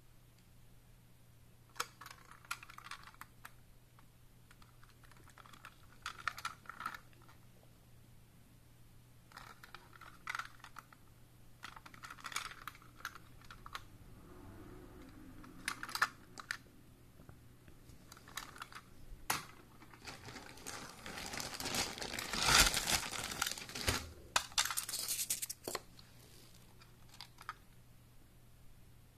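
Plastic toy train car being handled and turned over in the hands: scattered clicks and fingers rubbing on the plastic body, busiest and loudest about 20 to 25 seconds in.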